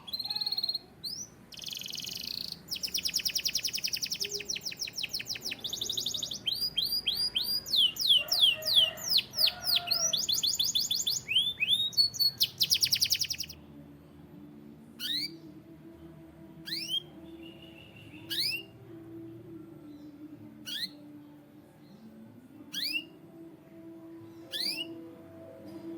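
Canary singing: fast trills and rolls of rapid repeated notes for about thirteen seconds. Then it switches to single sharp downward-sweeping chirps, one every second or two.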